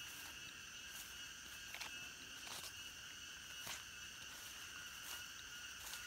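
Steady chorus of insects, several high tones held without a break, with footsteps through grass and brush roughly once a second.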